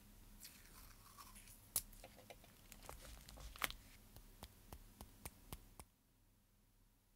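Close-miked crinkling and crackling of dried flower stems and paper being laid down and pressed onto an art journal page, with sharp ticks and a run of quick taps in the last couple of seconds; it stops suddenly about a second before the end.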